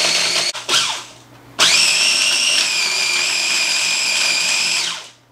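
Food processor motor pulsing as it grinds gingersnap cookies into crumbs. A burst cuts off about half a second in, a brief pulse follows, then a steady whining run of about three seconds stops just before the end.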